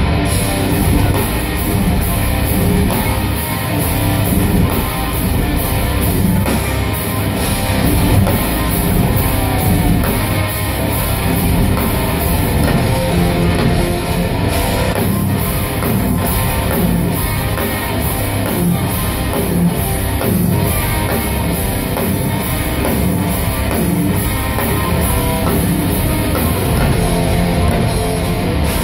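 Black metal band playing live: distorted electric guitars and bass over fast drum kit, loud and dense throughout.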